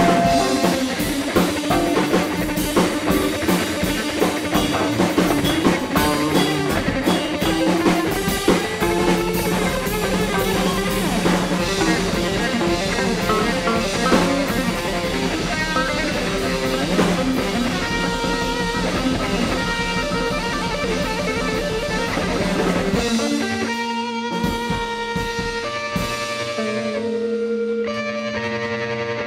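Drum kit and two guitars jamming together. About 23 seconds in the drums drop out, leaving the guitars playing on their own.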